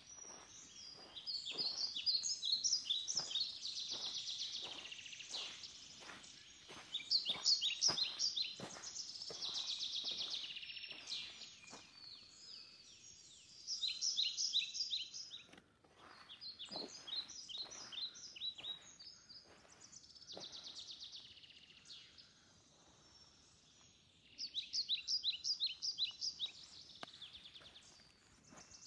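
Songbirds singing in woodland: repeated short phrases of quick, high notes, coming every few seconds with pauses between. Soft, regular footsteps through the first half.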